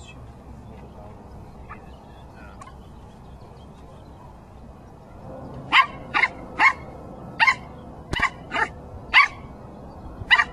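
A dog barking on command: about eight short, sharp barks in quick, uneven succession, starting a little past halfway, after a stretch of low steady background noise.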